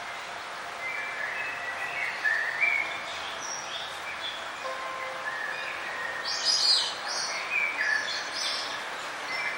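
Several small birds chirping and calling in short, quick notes over a steady background hiss, with a louder burst of high chirps about two-thirds of the way through.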